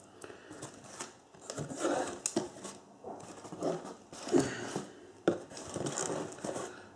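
Cardboard box flaps being folded open and crumpled newspaper packing rustling and crinkling under the hands, in irregular bursts with a sharp knock about five seconds in.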